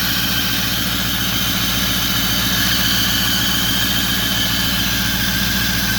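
Ford 6.4 L twin-turbo V8 diesel idling with a steady high-pitched whistle over the engine note. The mechanic puts the whistle down to leaking exhaust manifold gaskets.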